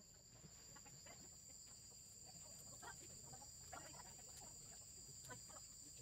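Near silence: a faint steady high-pitched drone, with a few brief faint calls scattered through it.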